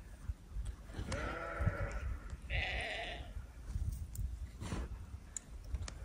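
Sheep bleating twice: a call about a second in, then a second one starting about two and a half seconds in.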